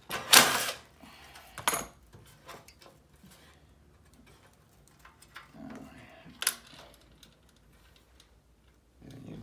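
Metal clanks and clicks from work on the sheet-metal air handler's drain pan and its adjustment screws. The loudest clank comes about half a second in and another about a second later, with a sharp click near the end and faint ticks between.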